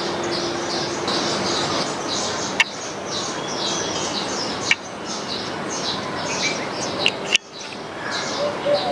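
Small birds chirping continuously in a rapid stream of short, high calls over steady background noise, with a few sharp clicks.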